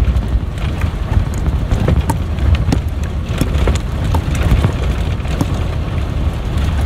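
Converted school bus driving over a rough dirt road: a steady low rumble from the engine and tyres, broken by frequent irregular clicks and knocks as the bus jolts over the bumps.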